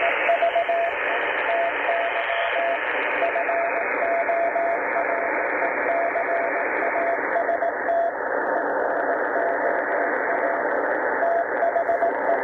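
Morse code from the ARRL code practice broadcast on an Icom IC-R75 shortwave receiver. A keyed tone beeps on and off through a band of hiss from the receiver's 2.4 kHz wide filter. The hiss grows duller in two steps, about three seconds in and again about seven seconds in, as the twin passband tuning narrows the passband and cuts off its upper part.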